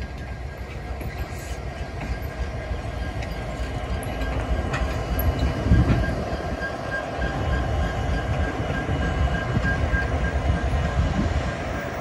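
Two Union Pacific diesel-electric locomotives rolling past at close range: engine rumble and steel wheels on the rails. The sound grows louder toward a peak about six seconds in as the second unit comes alongside.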